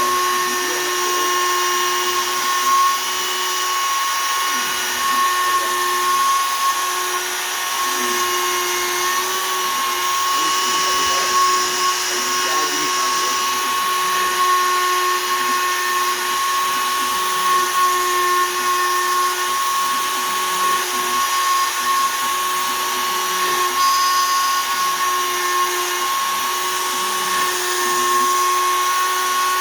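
CNC router spindle running at 20,000 rpm with a steady whine while a 1/8-inch two-flute downcut spiral bit mills poplar, the pitch holding and the level wavering slightly as the cut goes on.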